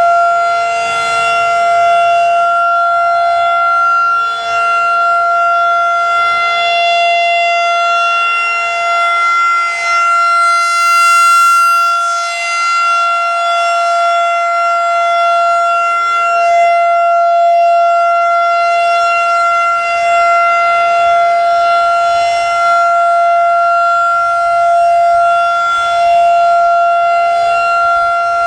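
Federal Signal 2001-SRN electromechanical outdoor warning siren sounding its Alert signal: a loud, steady-pitched wail that swells and fades every few seconds as the rotating head sweeps past.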